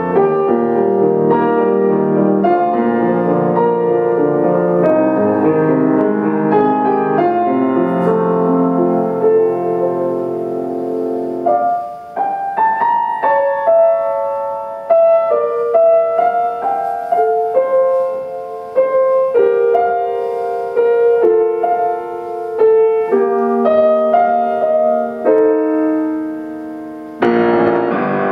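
Solo grand piano playing. Full chords over a low bass for roughly the first twelve seconds give way to a quieter, sparser melody of single notes in the middle register, and full chords return just before the end.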